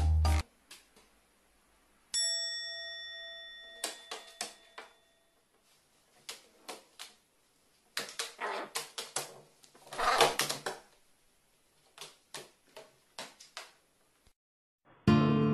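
A bright chime rings once and fades over a few seconds. Then come scattered light clicks and taps from a carrion crow's beak and claws on its wooden perch and the owner's hand, with a short rustle of feathers about ten seconds in.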